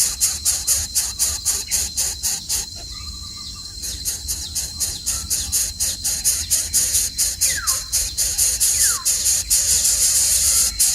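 A high, insect-like buzz pulsing about three to four times a second, stopping for about a second a few seconds in. In the second half a few short whistles fall in pitch, like a bird call.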